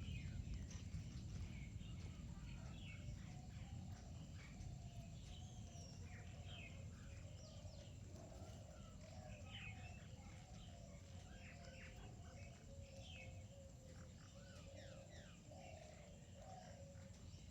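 Faint chirping of small birds: many short, quick calls scattered throughout, over a low background rumble.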